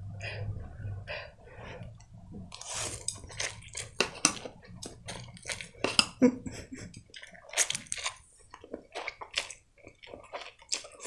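A person slurping and chewing instant noodles, with wet, sucking slurps and short smacking clicks coming in quick runs throughout.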